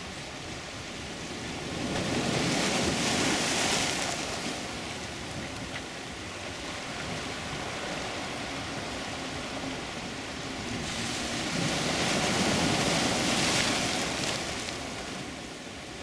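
Ocean waves breaking on a low rocky shore and washing over the rocks: two surges of white-water rush, one about two seconds in and another about three quarters of the way through, with a softer steady wash between them.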